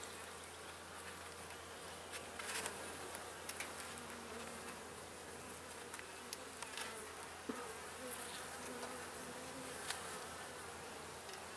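Honeybees buzzing over an open hive, a steady hum, with a few light clicks and knocks as wooden hive frames are shifted and lifted.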